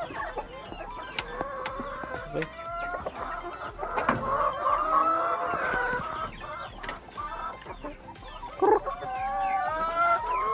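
Several chickens clucking, with a rooster crowing in long, wavering calls that overlap one another, and a few sharp knocks.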